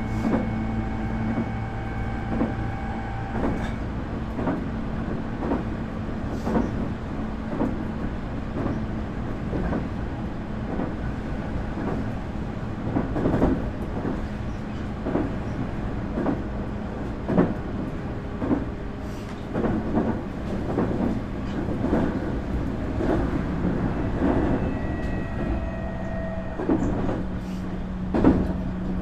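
Interior running sound of a Nankai 8300 series motor car on the move: a steady low hum with wheels clicking over rail joints throughout. The VVVF inverter and totally enclosed traction motors whine in steady high tones for the first few seconds, which stop about three and a half seconds in, and a new set of tones comes in near the end.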